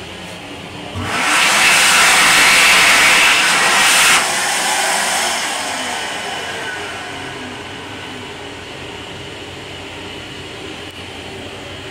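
Wall-mounted stainless-steel hand dryer blowing loudly for about three seconds, cutting off sharply and then winding down over a few seconds. Under it runs the steady rumble of the moving railcar.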